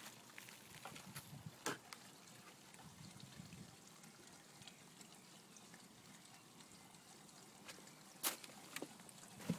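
Faint steady trickle of water into a garden pond, broken by a few short sharp sounds, the loudest about eight seconds in.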